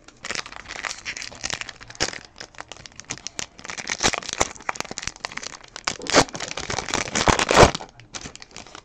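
A foil Topps Chrome trading-card pack being torn open and its wrapper crinkled by hand, a dense run of crackling and rips. The loudest crackles come about six and seven and a half seconds in, and the sound stops shortly before the end.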